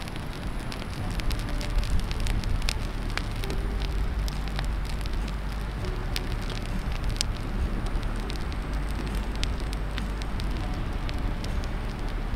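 Small birch-log campfire crackling, with sharp irregular pops throughout and a steady low rumble underneath.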